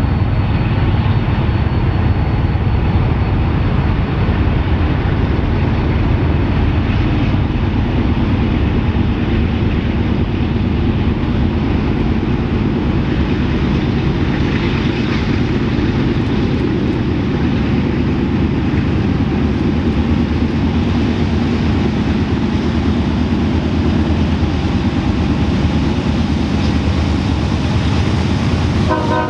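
Diesel locomotives of a CSX freight train running in a steady low rumble as the train approaches.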